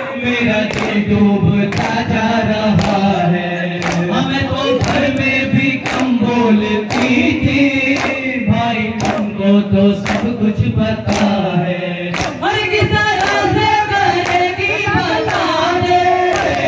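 Men singing a noha through handheld microphones, with a group of men chanting along, over rhythmic matam: hands beating on chests about twice a second. About twelve seconds in the singing lifts to a higher line.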